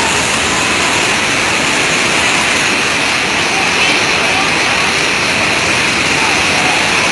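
Steady, loud rush of floodwater, churned and sprayed up by a bus wading through it.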